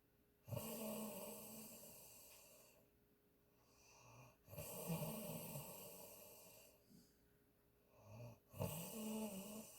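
A sleeping woman snoring: three snores about four seconds apart, each fading over a couple of seconds.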